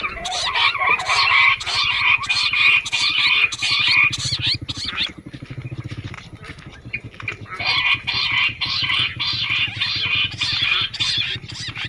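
Bush quail calls used as a hunting lure: rapid, loud chattering in two long bouts with a pause of a couple of seconds in the middle. A low steady hum runs underneath.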